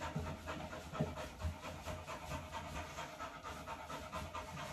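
Beagle-type dog panting steadily while being towel-dried after a bath.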